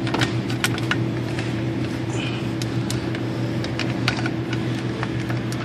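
Scattered light clicks and knocks of a strap wrench being worked up between hoses and around a clip toward the oil filter, over a steady background hum.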